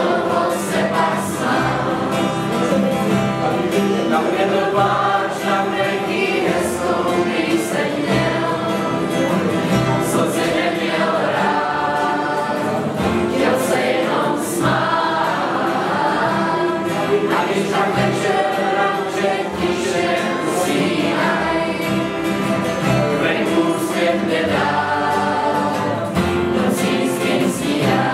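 A large group of young voices singing together to many strummed acoustic guitars, with a double bass underneath.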